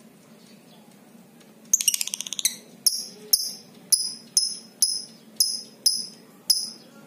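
Lovebird calling: a fast, rattling chatter about two seconds in, then a string of about eight shrill, sharp chirps at about two a second. This is the excited calling a lovebird gives on meeting a rival.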